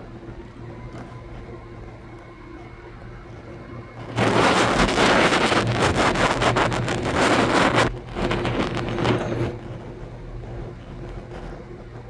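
A steady low drone from idling trucks. About four seconds in, a loud rushing hiss starts suddenly and runs for nearly four seconds before cutting off, followed by a second, shorter hiss.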